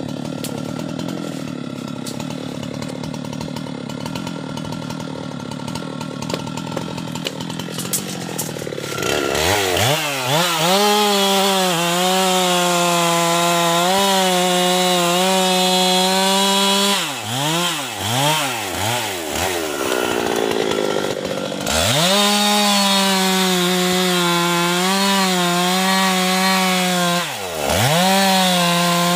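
Husqvarna two-stroke chainsaw cutting teak wood. It runs at a lower, steady speed for about nine seconds, then revs up to full speed and holds it. In the middle the revs drop and pick up several times, and they dip once briefly near the end.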